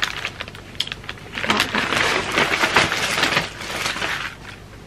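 Dried flowers and their brittle stems being handled, rustling and crackling in a run of irregular crisp snaps.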